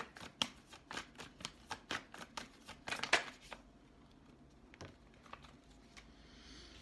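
A deck of tarot cards being shuffled by hand: a quick, even run of card flicks, about four a second, that stops about three and a half seconds in, then a few soft taps as the cards are handled.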